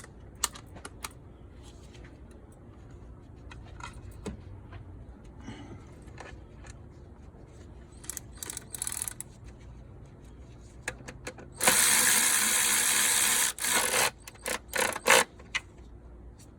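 Small clicks of tools and fasteners being handled, then about twelve seconds in a loud steady mechanical noise for about two seconds, followed by several short bursts of the same noise, as nuts and bolts are worked on an engine's intake manifold.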